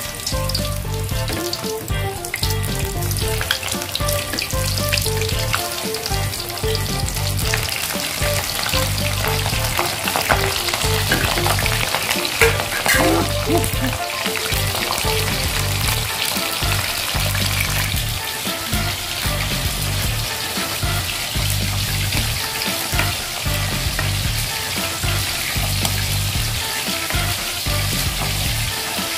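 Battered food deep-frying in hot oil in a steel wok: a steady, busy sizzle. Background music with a regular bass beat plays underneath.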